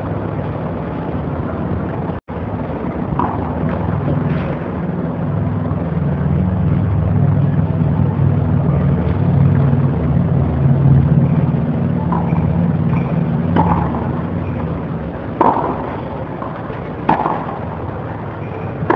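Tennis balls struck by rackets on a clay court, several sharp pocks spread through the rally, the loudest two near the end, over a steady low drone.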